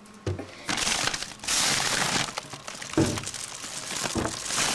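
Plastic shopping bags and potato chip bags crinkling and rustling as they are handled, loudest about a second and a half in.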